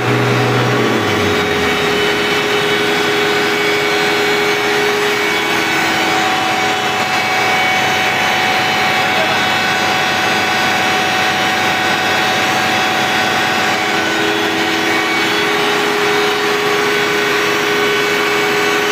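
Greaves Cotton 500 kVA 12-cylinder diesel generator engine running steadily at 1500 rpm during a load test: a loud, even drone with several steady whining tones over it.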